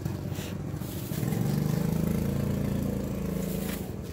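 A motor vehicle engine running close by, getting louder about a second in and holding steady.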